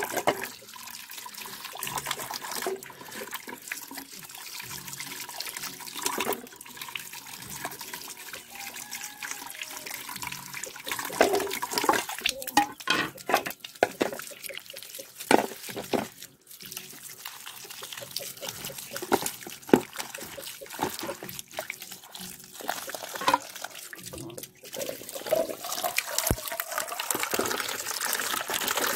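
A stream of running water pouring over small potatoes and leafy greens on a plate and in a steel bowl as they are rubbed clean by hand. Splashes and scattered knocks of potatoes against the metal bowl run through it, thickest in the middle.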